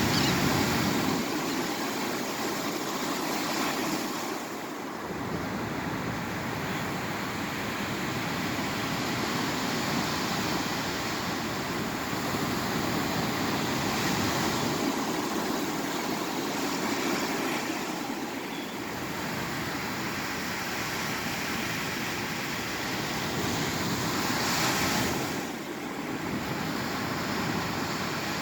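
Ocean waves breaking and washing up a sandy beach: a steady rush of surf that swells and eases as each wave comes in.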